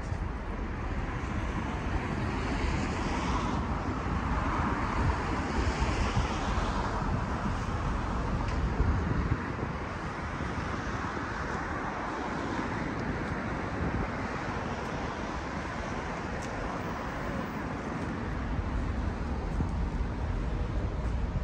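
Road traffic going by: a steady wash of car and tyre noise that swells as vehicles pass, most strongly in the first third, with wind rumbling on the microphone.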